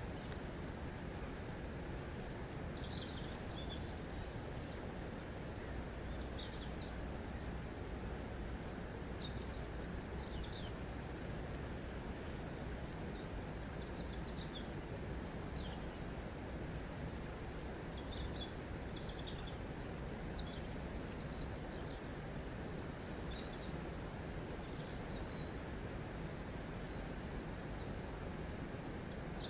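Steady rush of flowing water, with small birds chirping and calling on and off above it.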